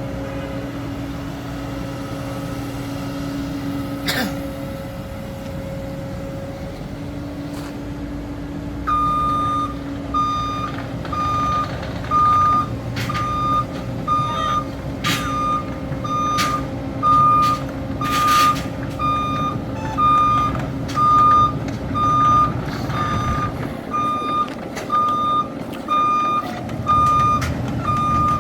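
CAT 307 excavator's diesel engine running steadily. About nine seconds in, its travel alarm starts beeping at a steady pace, with a few sharp metallic knocks along the way.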